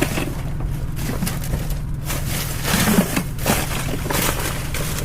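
Rustling and knocking of trash and empty packaging being rummaged through in a dumpster, over a steady low rumble.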